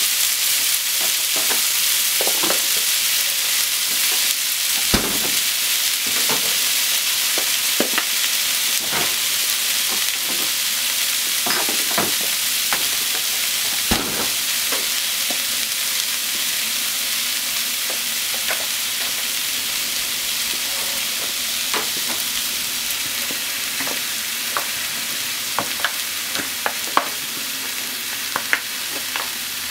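Potatoes, onions and pork frying in oil in a frying pan: a steady sizzle with scattered sharp pops and crackles.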